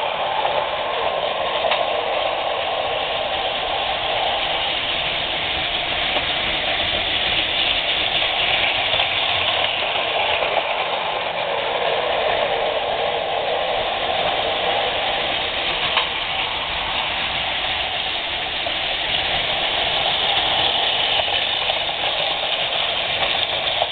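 Several battery-powered Plarail toy trains running at once on plastic track: a steady whir of their small motors and gears, with an occasional faint click.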